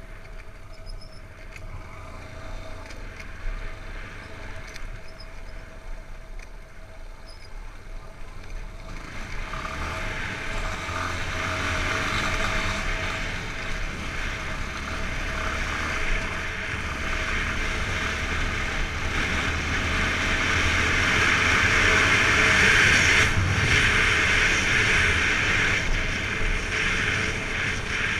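Yamaha XTZ 250 Lander's single-cylinder four-stroke engine running while under way, with wind rushing over the camera microphone. The wind hiss swells about a third of the way in and is loudest shortly before the end.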